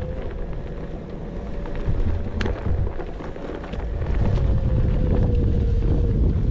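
Onewheel electric board's hub motor whining in one steady tone, rising slightly in pitch about half a second in and easing back down near the end as the ride speed changes. Under it is heavy low rumble of wind on the microphone, with a few small ticks, the sharpest about halfway through.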